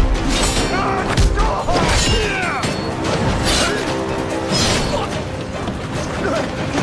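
Dramatic film score under a sword fight: a sweep or hit about every second or so, with whooshing blade swings, clashes and thuds over sustained music.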